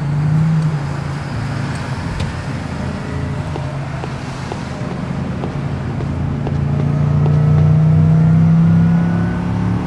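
Car engine running steadily as the car drives along. It gets louder in the second half, and a faint rising whine near the end shows it speeding up.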